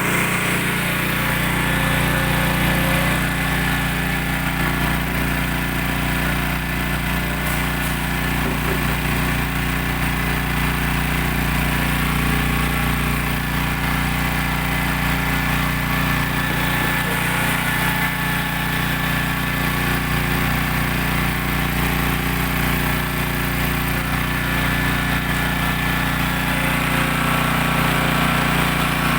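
Motor-driven coconut milk press machine running steadily, a constant mechanical drone with no change in speed.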